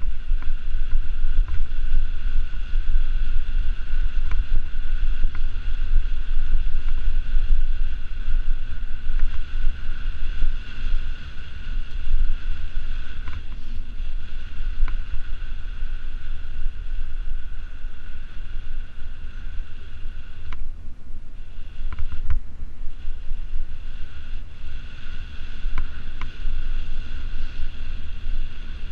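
Wind buffeting a handlebar-mounted action camera's microphone while riding a bicycle, a constant low rumble. A steady high whine runs over it, dropping away for a few seconds past the middle, with a few faint clicks from the bike.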